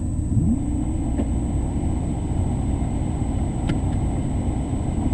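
Maserati 3200 GT's twin-turbo V8 idling steadily at a standstill, heard from inside the cabin, with a brief small rise in revs about half a second in.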